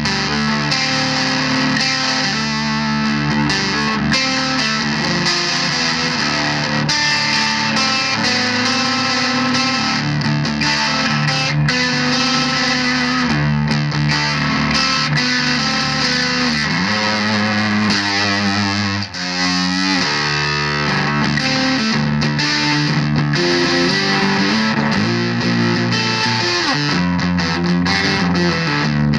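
Electric guitar played through a Volition Amps Vintage Fuzz, an all-germanium fuzz pedal: distorted, sustained chords and riffs that change every second or two, with a short break about nineteen seconds in.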